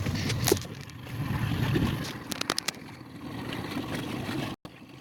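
Small boat on the water: a steady low rumbling noise, with a few sharp knocks or clicks about half a second in and again around two and a half seconds.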